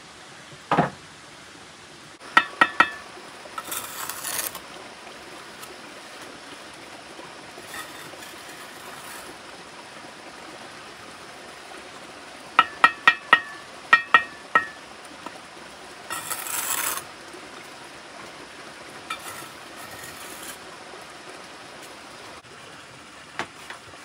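Sharp ringing clinks of hard objects knocking together, a few at a time in two clusters, with short bursts of scraping between them.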